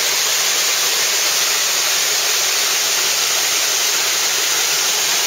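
Mountain stream rushing and splashing over rocks in a small cascade: a steady rush of water.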